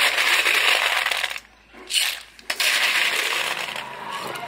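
Snail shells tipped by the ladleful into an empty steel wok, clattering and rattling loudly against the metal in several pours with short pauses between. The clatter stops about three and a half seconds in.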